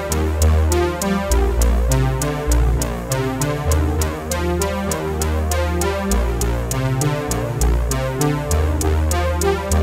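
Electronic background music with a steady beat: synthesizer chords over a deep bass line and quick, even ticks.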